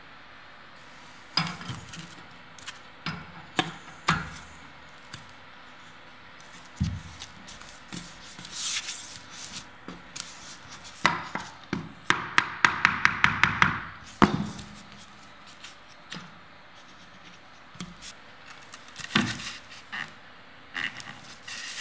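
Laminate floor boards being handled and fitted around heating pipes: scattered knocks and clicks of the boards, with a quick run of about ten light taps a little past the middle.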